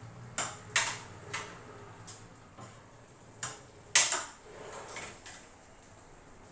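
Metal kitchen tongs clicking and scraping against a metal oven baking tray as roasted onion halves are turned over: a string of sharp clacks, the loudest about four seconds in.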